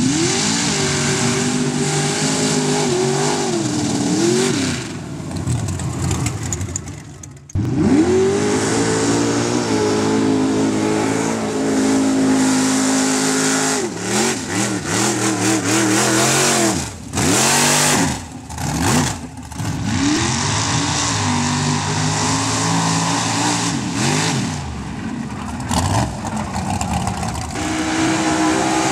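Mud-bogging trucks' engines revving hard as they charge through a mud pit, the pitch climbing and dropping again and again. Several runs are cut together, so the engine sound breaks off abruptly and restarts a few times.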